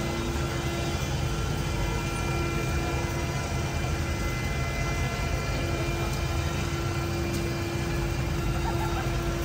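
Steady city street ambience of idling vehicle engines at an intersection, with a constant hum that drops out for a couple of seconds midway.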